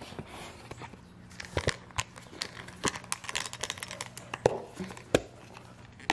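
Crinkling and rustling from handling a pet travel bag and its collapsible bowls, with scattered clicks and taps. Two sharper knocks come about four and a half and five seconds in.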